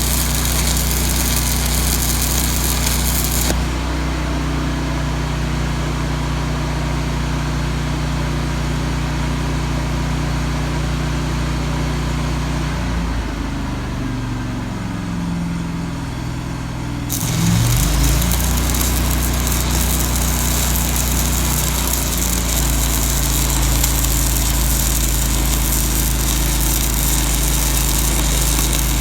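Engine-driven Miller Trailblazer 325 EFI welder running while stick welding with 3/16" 5P+ (E6010) rod at 180 amps. The arc crackles for the first few seconds and then goes out, leaving the engine running alone. Its pitch shifts, and about 17 seconds in the arc is struck again and the engine picks up under the load.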